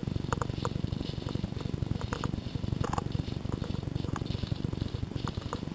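Rough, rumbling handling noise on a body-worn camera's microphone as the camera is jostled while its wearer moves, with scattered short sharp clicks.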